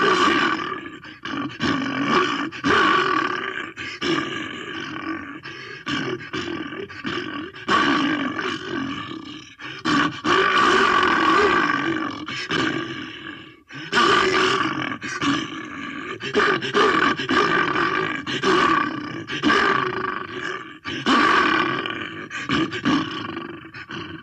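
Monster sound effect for the amhuluk, a legendary swamp creature: a string of loud, rough roars and growls with short breaks between them, the longest held from about ten to thirteen seconds in.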